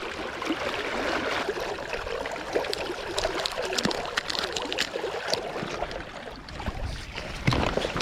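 Shallow river water running and gurgling, a steady rush with many small clicks and splashes scattered through it.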